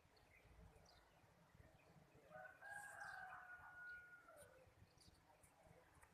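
A rooster crows once, faintly: a single long call starting about two seconds in, held for about two seconds and falling away at the end. Small birds chirp briefly through it.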